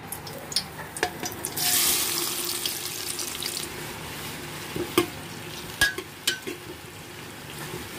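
Sliced onions dropped into hot oil in a pressure cooker: the oil sizzles up about a second and a half in, dies down over the next two seconds, then keeps up a steady fry. A metal spoon clinks against the cooker several times as the onions are stirred.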